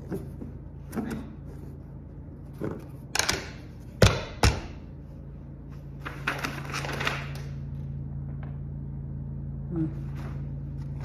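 Dumbbell stand parts knocking and clacking as they are fitted together and set down on a tile floor, several sharp knocks with the two loudest about four seconds in. Then paper and plastic packing rustles for a couple of seconds.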